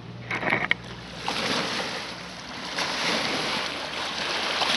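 Small waves lapping and splashing over the rocks at a lakeshore, with wind on the microphone. A brief knock and rustle about half a second in.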